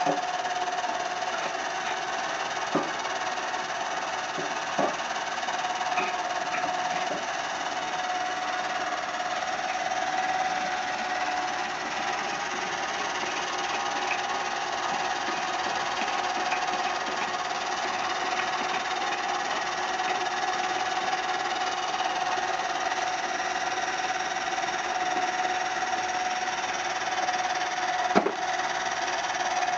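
AndyMark DC gearmotor running steadily, driving a roller chain and a toothed timing belt over plywood pulleys: a steady whine over a busy mechanical noise. A few sharp knocks break in, the loudest near the end.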